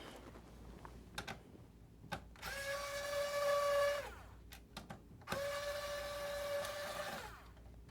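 Small electric screwdriver motor whirring in two runs of about two seconds each, spinning up quickly, holding a steady whine, then winding down, as it backs a Phillips screw out of the console. A few light clicks come before the first run.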